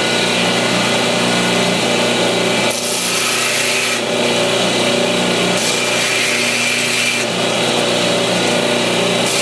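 Belt grinder running steadily while the broken tip of a steel folding-knife blade is ground back into a new point, a motor hum under a continuous rasping grind.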